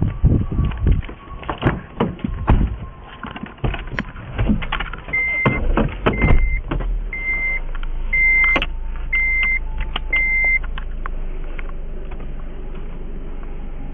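Thumps and clatter of someone getting into a car, then the car's warning chime beeping six times, about once a second, over the low steady hum of the engine running.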